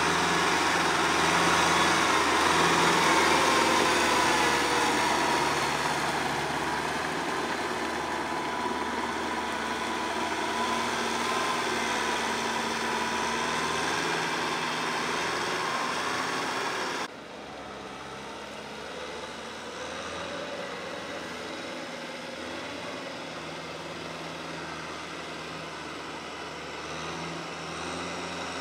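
Kubota tractor's diesel engine running steadily under load as it pulls a rotary tiller through wet paddy mud. About two-thirds of the way through the sound abruptly becomes quieter and duller, then carries on steadily.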